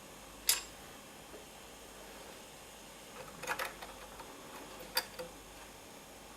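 A few sharp clicks and light taps from small parts and tools being handled: one about half a second in, a short cluster around the middle, and another near the end. A steady faint hiss runs underneath.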